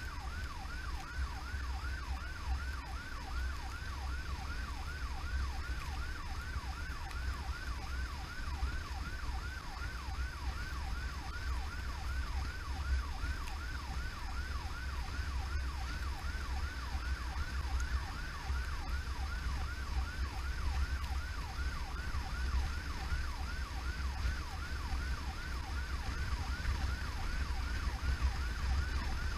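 Electronic emergency-vehicle siren on a fast yelp, about two rising sweeps a second without a break, over the low rumble of the vehicle's engine and road noise as heard inside a moving emergency vehicle.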